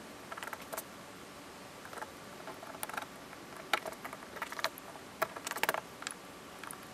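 A razor blade shaving and scraping at the plastic of a boat console, trimming the raised edges around old screw holes: a scatter of small, irregular clicks and scrapes, with a quick run of them late on.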